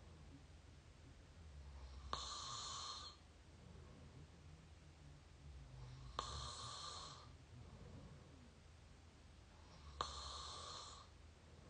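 A person snoring through an open mouth at close range: three breath cycles about four seconds apart, each a low snore leading into a click and about a second of airy breath.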